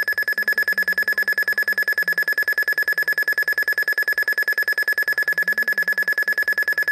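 Weather alert radio's alarm going off for a test tornado warning: a loud, rapid high-pitched beeping, about eight beeps a second, that cuts off suddenly near the end.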